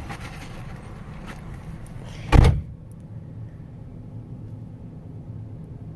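A vehicle's low, steady running hum, with a car door shutting with a loud thump a little over two seconds in. After the thump the outside noise is muffled, as heard from inside the cab.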